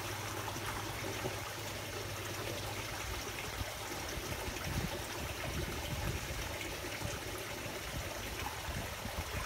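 Steady trickling water of a koi pond, with a faint low hum underneath.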